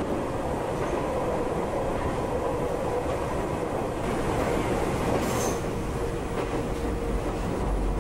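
Nankai electric train running along the track: a steady rumble of wheels on rails with a faint steady whine, and a brief high squeal about five seconds in.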